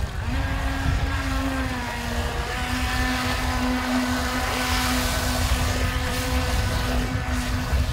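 Modified Tear-Into RC jet boat running on the water: its water-cooled 600-watt brushless inrunner motor on a 3S LiPo gives a high whine that holds a nearly steady pitch, dipping slightly now and then. A rush of water comes in the middle as it turns, over a low rumble of wind on the microphone.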